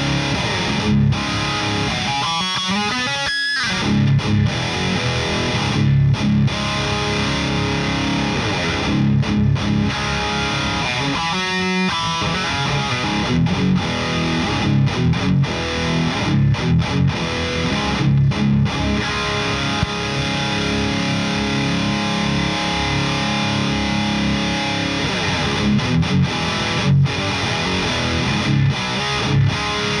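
Heavily distorted electric guitar playing metal riffs, a Kramer Vanguard through a boosted Victory Super Kraken tube amp into Jensen speakers miked with SM57s: tight palm-muted chugs broken by abrupt stops, with a sweeping slide about two and a half seconds in and another about twelve seconds in.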